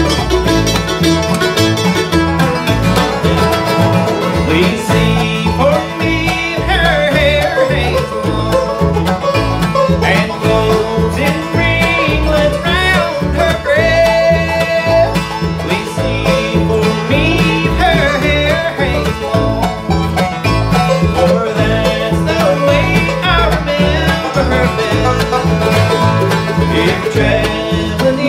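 Live acoustic bluegrass band playing: banjo rolls, acoustic guitar, mandolin, dobro and upright bass together at a steady beat.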